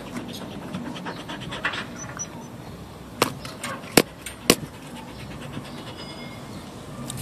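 A dog panting right at the phone's microphone, with wet licking and scratchy rubbing of its muzzle on the phone. Three loud sharp knocks come in the middle as its mouth hits the phone.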